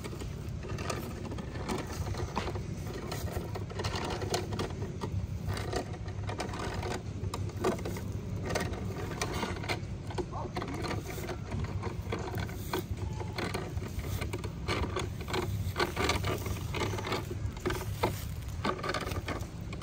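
Hand-cranked rope-making machine's gears clicking and rattling as the crank is turned, twisting strands of twine into rope.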